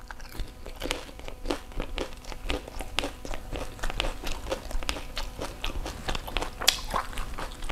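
Crisp fried pani puri shell crunching as it is bitten and chewed: a rapid run of short crackly crunches, with one louder crunch near the end.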